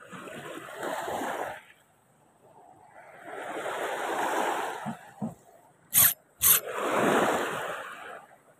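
Small sea waves washing on the shore in three swells, a few seconds apart. Two sharp, loud clicks about half a second apart come shortly after the middle.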